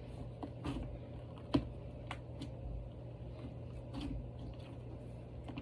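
Slime being squeezed and worked by hand: soft squishing with scattered small pops and clicks. One sharper click comes about a second and a half in.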